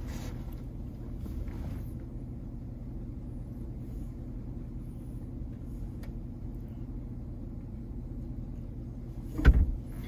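Truck engine running steadily, heard from inside the cab. Near the end comes a single sharp thump.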